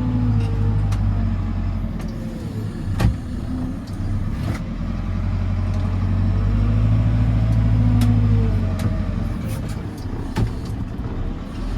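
JCB 4CX backhoe loader's diesel engine running under load as its front bucket pushes and levels stone, the revs rising and falling, with a sharp knock about three seconds in and another near the end.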